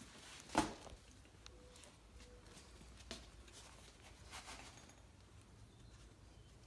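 Quiet handling sounds as the timing cover and water pump assembly is brought up to the engine block: one sharp knock about half a second in, then a few faint clicks and rustles.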